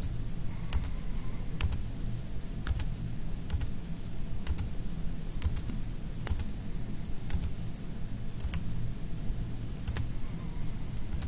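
Computer keyboard's Enter key pressed about once a second, each stroke a sharp click, sometimes doubled, over a low steady hum. It is accepting the default answer at each installer prompt in turn.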